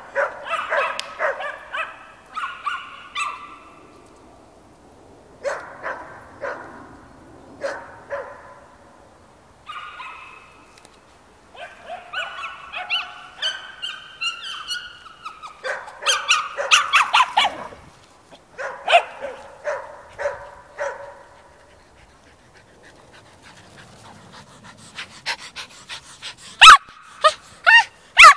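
Several small dogs barking and yipping in bouts while they play together. A few sharp knocks come near the end.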